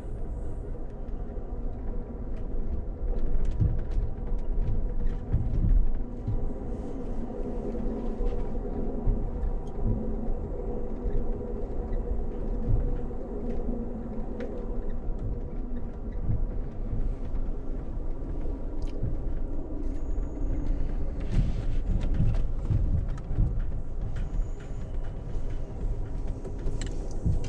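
Passenger train running at speed, heard from inside the coach: a steady low rumble with scattered sharp clicks and knocks from the wheels and car body.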